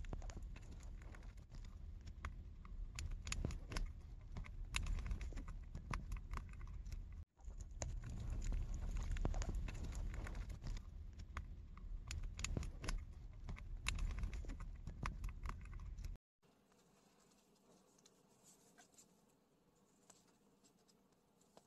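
Green-cheeked conure cracking and nibbling millet seeds with its beak: rapid, irregular small clicks and crunches over a low rumble. The clicking stops abruptly about five seconds before the end.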